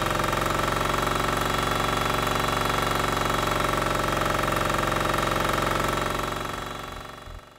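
Kohler single-cylinder diesel engine running steadily at about 3000 rpm under dynamometer load on hydrodiesel fuel. The sound fades out over the last second and a half.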